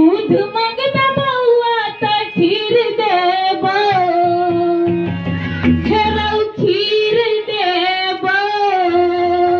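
A woman singing a Maithili patriotic song live into a microphone, holding long notes with vibrato, over a steady keyboard drone and a hand-played dholak.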